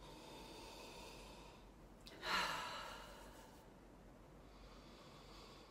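A woman breathing slowly and deeply through cupped palms. About two seconds in comes a louder sigh that fades over a second or so.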